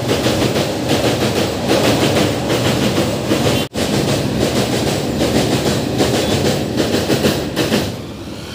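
Freight train wagons clattering loudly across a steel truss railway bridge, the wheels clicking over the rail joints. The sound cuts out for an instant a little past a third of the way in, and eases near the end as the brake van at the tail passes.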